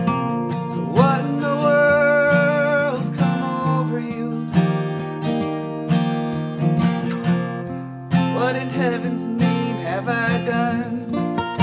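Acoustic guitar playing a folk song with a voice singing two phrases, one starting about a second in and another in the second half.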